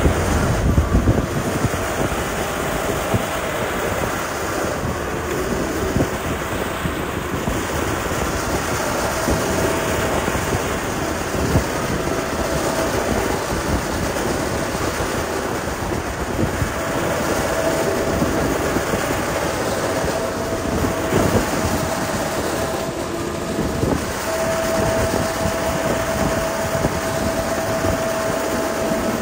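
Liugong motor grader's diesel engine running steadily as it spreads gravel, with a faint steady whine that comes and goes.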